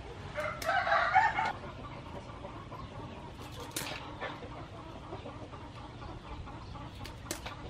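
A chicken clucking for about a second near the start, followed by a few sharp clicks of scissors snipping crab shell.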